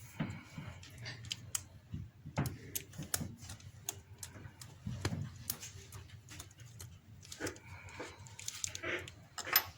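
Small hand tools and screws clicking and tapping against a phone's frame at irregular intervals during hands-on repair work, with a sharper click near the end.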